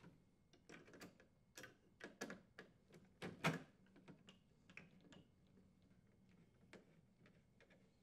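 Faint scattered clicks and taps of a plastic access panel being set against an ice machine's frame while its screws are driven with a hand screwdriver, with one louder knock about three and a half seconds in.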